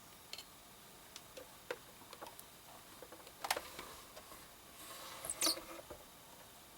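Scattered light clicks and taps from small things being handled. About five seconds in there is a short rustle with a sharper click.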